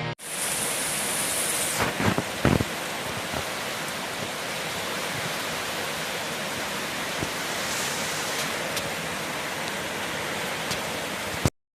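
Steady heavy rainfall, with a few sharper, louder drip knocks about two seconds in; the sound cuts off abruptly near the end.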